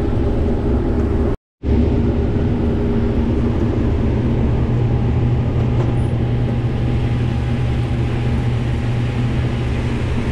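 Combine harvester running steadily while shelling corn: a loud, even engine and machinery drone. The sound cuts out completely for a moment about a second and a half in, then resumes unchanged.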